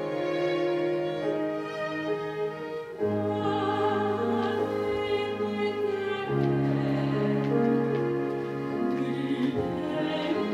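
A small string ensemble of violins, violas and cellos plays sustained chords in a slow classical song, with female voices singing in a trained operatic style.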